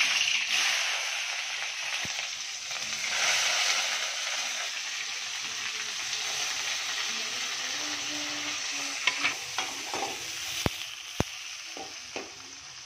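Sliced onions and green pepper dropped into hot oil in an aluminium kadai, sizzling loudly at once and slowly easing off. From about nine seconds in, a metal spatula scrapes and knocks against the pan as the vegetables are stirred.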